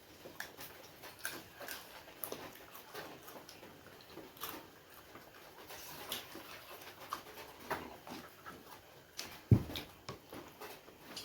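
Close-miked chewing and mouth smacks from eating momos, with many small scattered clicks. A single loud thump about nine and a half seconds in.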